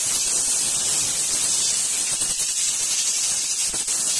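Steady high-pitched hiss.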